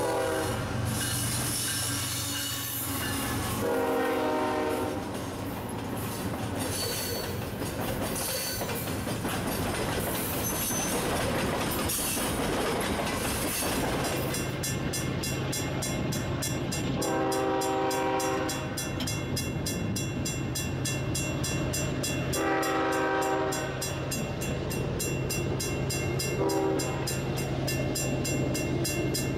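GE ES44AC freight locomotive passing close by, sounding its horn twice over a steady low rumble of the engine and rolling freight cars. About halfway through, a grade crossing's bell starts ringing with rapid, even strikes, and the horn sounds two long blasts and a short one from farther off as a train approaches the crossing.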